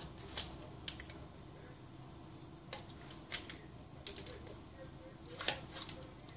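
A small blade cutting slits into a slab of bread dough, giving about seven sharp clicks spaced irregularly a second or so apart, where it meets the baking tray.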